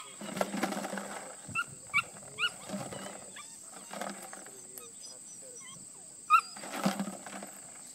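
A puppy giving short, high-pitched barks, three quick ones in the first half and a couple more near the end, with some brief rustling between. It is barking at a toy held still, asking for it to move.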